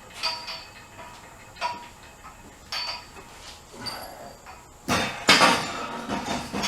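Metal tools and steel parts clinking as a go-kart's roll bar is worked loose: a few short ringing clinks, then a louder clattering rattle about five seconds in.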